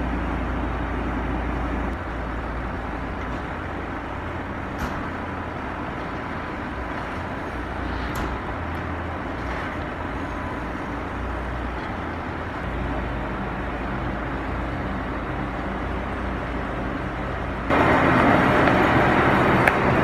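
SUV engine running at low speed while towing a caravan, a steady low hum with a few light knocks. Near the end it gives way to a louder, rougher noise.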